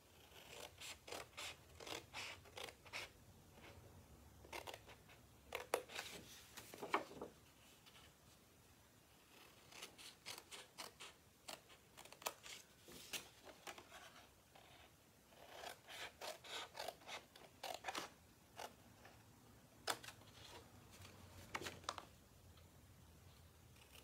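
Small pointed scissors snipping scored cardstock, quiet, in several runs of quick short snips with pauses between, trimming angled tabs at the corners of a box template.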